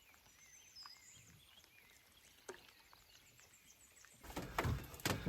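Faint birdsong, a few wavering whistled calls, over a quiet outdoor background. About four seconds in, loud rustling and low thumps start suddenly.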